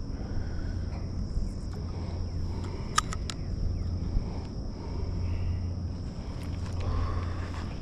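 Insects droning steadily at one high pitch, over a low rumble, with a few sharp clicks about three seconds in.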